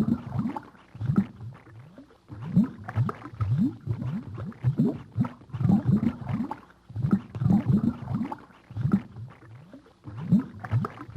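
Low-pitched animal calls: short rising grunts, bunched in quick clusters that repeat over and over.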